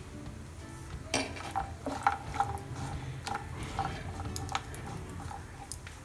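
A spoon knocking and scraping against a pan in irregular clinks, several to a second at times, as dry dates are stirred and roasted in hot ghee.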